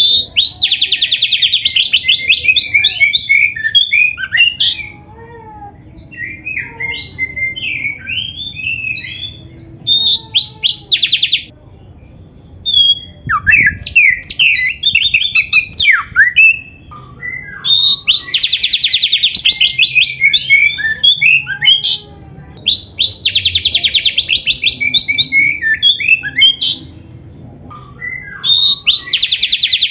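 Oriental magpie-robin (kacer) singing in full voice, its song packed with mimicked phrases: long runs of fast rattling trills alternate with varied whistled and chattering notes. The phrases are broken by several short pauses.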